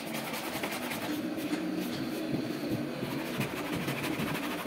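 Several cloths being rubbed by hand over a car's painted bonnet to polish in compound, a busy, uneven scrubbing made of many quick strokes.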